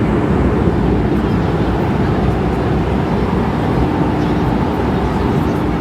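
Steady, loud noise of a jet airliner in flight, heard inside the cabin: a constant rush of engine and airflow with a faint low hum.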